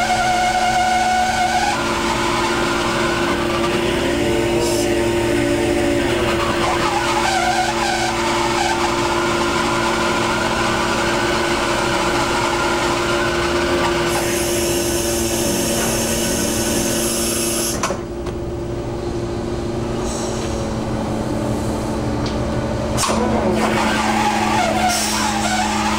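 Fishing boat's engine and deck machinery running with a steady two-pitch hum, over wind and sea wash on deck. A couple of sharp knocks come late on.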